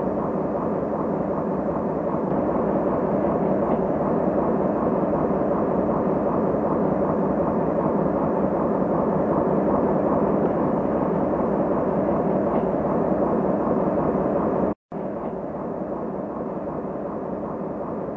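Steady noise of a diesel switcher locomotive running, cutting out for a split second near the end.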